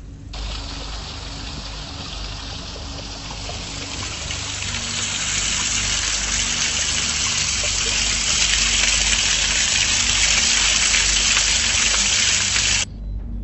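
Waterfall splashing, a steady rush of falling water that grows louder about five seconds in and cuts off suddenly near the end.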